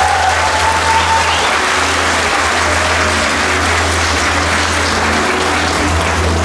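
Audience applauding steadily, with the last held note of the song fading out about a second in and a steady low hum underneath.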